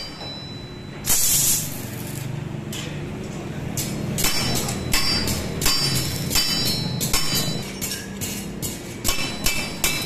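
Repeated hammer blows on steel, each with a short metallic ring, coming faster after about four seconds, over the crackle of a stick arc welder tack-welding iron rosettes to a window grill. A loud hissing burst comes just after a second in.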